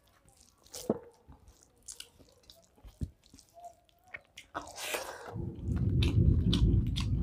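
A person chewing a mouthful of hand-mixed rice close to a clip-on microphone, loud and dense from about five seconds in. Before that, scattered soft clicks and wet smacks as fingers work rice on a steel plate.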